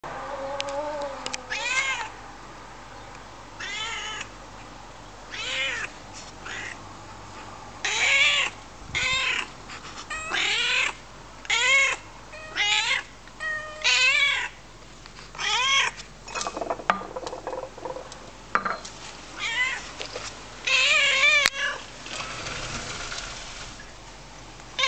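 Domestic cat meowing over and over, about a dozen meows one every second or two. Each meow rises and falls in pitch, and a longer one comes near the end.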